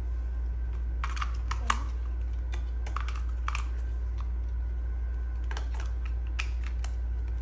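Irregular light clicks and taps of batteries and a plastic toy being handled while the batteries are fitted, over a steady low hum.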